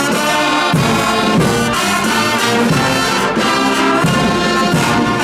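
Brass band with sousaphones and other horns playing a slow tune in full sustained chords that shift every second or so.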